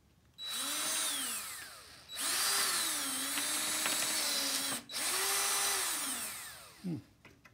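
Cordless drill boring into a rusted screw head at the pivot bar of a window sash, run in three bursts, its motor pitch sagging and recovering under load, then winding down. The drill is cutting out a corroded screw that could not be turned with a screwdriver.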